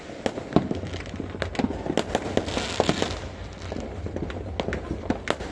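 Fireworks going off: many sharp bangs and pops at irregular intervals, some near and some farther off, with a brief hiss about halfway through.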